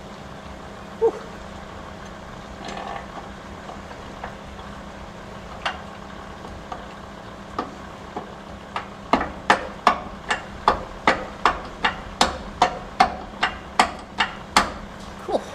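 Hammer tapping on metal: a few scattered single knocks, then a quick run of sharp taps at about two a second over the last six seconds, over a steady low hum.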